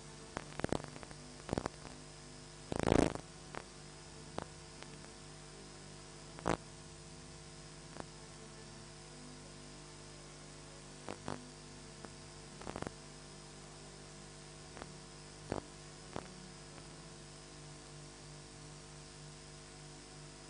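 Steady electrical mains hum, with scattered short knocks and bumps, the loudest about three seconds in, growing sparse in the later part.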